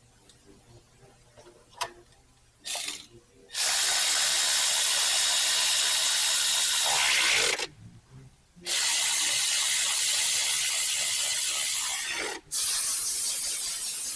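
Milwaukee electric ratchet running in bursts as it drives bolts down: a short blip about three seconds in, then three long runs of several seconds each, with brief pauses between them.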